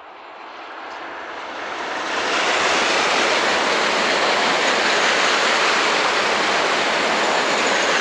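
Renfe AVE high-speed train passing close by at speed. A rushing noise of air and wheels on rail builds over the first two seconds or so as the train nears, then stays loud and steady while the train goes by.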